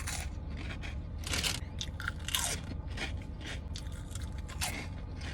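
A person chewing a mouthful of chicken sandwich close to the microphone, with irregular crunchy bites and wet mouth sounds.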